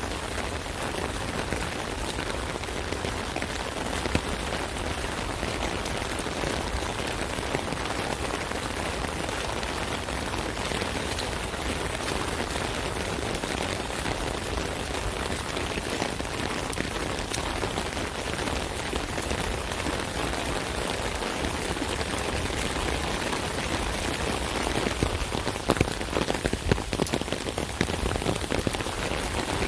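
Rain falling steadily on an umbrella canopy, a dense even hiss full of small drop impacts. Near the end comes a short run of louder, heavier drop hits.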